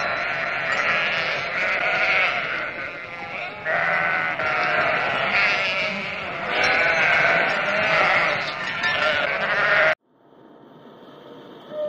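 A large flock of sheep bleating, many voices overlapping continuously. The bleating cuts off suddenly near the end, leaving a faint sound that slowly grows louder.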